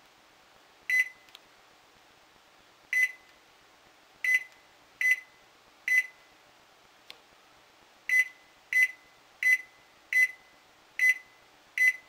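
Panasonic NE-E22A2 microwave's control panel beeping as its buttons are pressed: about eleven short high beeps at uneven intervals, one for each press, several in quick succession near the end. Each beep confirms that a light touch on a button with almost no click feel has registered.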